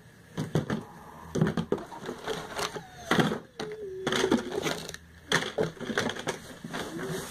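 Small cardboard cosmetics boxes and their packaging handled and moved on a table: a string of short knocks, rustles and crinkles.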